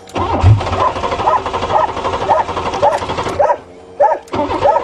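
Starter cranking the Buick's 3.8 V6 without it catching: a rough, rhythmic churning with short high chirps about twice a second. The cranking stops for a moment about three and a half seconds in, then starts again.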